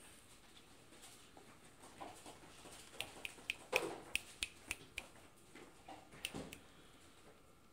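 Cats playing in a cardboard box: a quick run of sharp taps and scratches of paws on the cardboard, with one louder thump, starting about three seconds in and easing off a little after six seconds.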